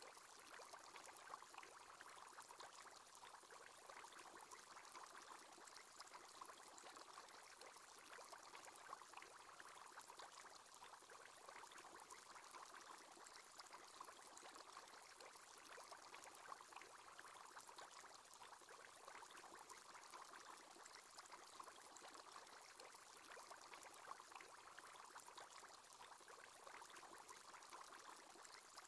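Faint, steady bubbling of an aquarium aerator's bubble column, a continuous fizz of many tiny bubble pops.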